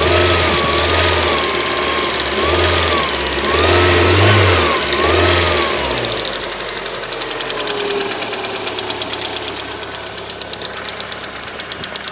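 Lada Priora engine running with rapid ticking from its hydraulic valve lifters. This knock is worn or failing lifters, which the owner says tap until the engine warms to about 90 degrees. Over the first six seconds a wavering tone rises and falls above the engine.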